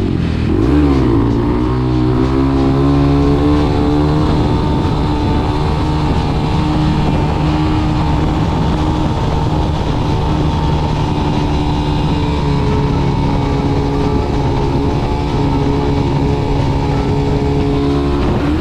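Motorcycle engine running at a steady high speed while riding, with wind and road noise. Its pitch dips and climbs in the first second or two, then holds steady.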